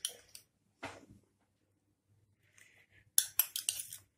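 Metal spoon clinking and scraping against a small glass bowl while scooping out green chutney. A few single clinks come early, then a quick run of clinks about three seconds in.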